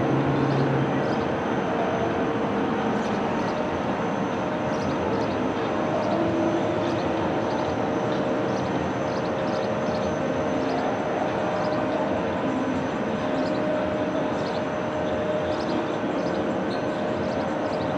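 Elevated subway train of stainless-steel cars running on curved el track: a steady rumble and rattle of wheels on the rails, with a faint steady whine.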